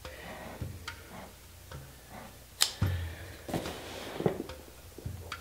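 Cardboard shipping box being handled: scattered light taps and a few soft thumps as it is turned and lifted, the loudest about two and a half seconds in.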